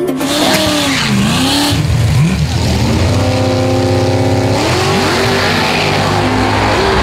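Car engine revving, its pitch falling and rising several times, holding steady for a second or so in the middle, then climbing again near the end.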